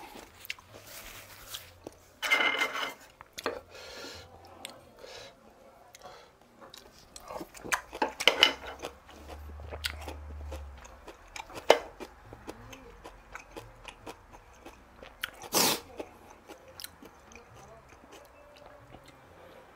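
Close-miked eating and handling sounds: a paper towel rustled between the hands, scattered mouth clicks and smacks, and a loud short noise about fifteen and a half seconds in. Gulps from a drink can come near the end.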